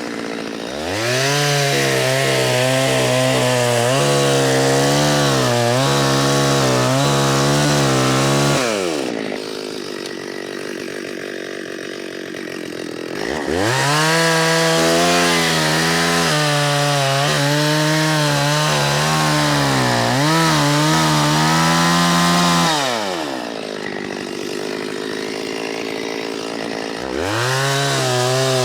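Two-stroke chainsaw bucking a Cook pine log into short firewood lengths: the saw runs at full throttle through a cut, drops back to idle about 9 seconds in and again about 23 seconds in, then revs back up into the next cut.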